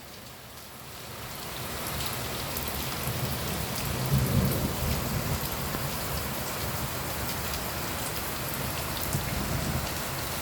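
Steady rain falling and splashing on a balcony, with a low rumble swelling about four seconds in.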